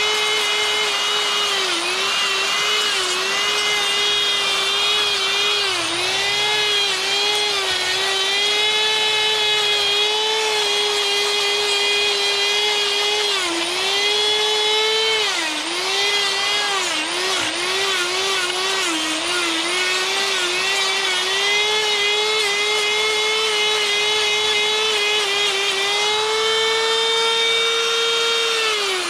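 Die grinder with a sphere burr grinding into a wooden bear carving: a high steady motor whine that dips again and again as the burr bites into the wood, then runs freely at a slightly higher pitch near the end.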